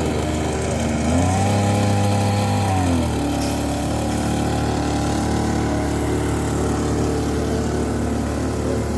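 Small 52 cc two-stroke petrol engine of a floating water pump running. Its speed rises about a second in, holds higher for about two seconds, then drops back to a steady lower run.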